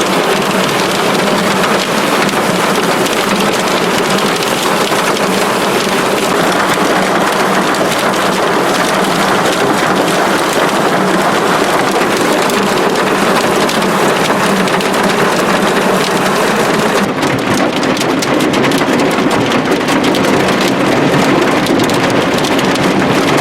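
Heavy thunderstorm downpour with hail pelting down in a loud, steady roar of impacts; about two-thirds of the way through, sharp ticks of hailstones grow denser.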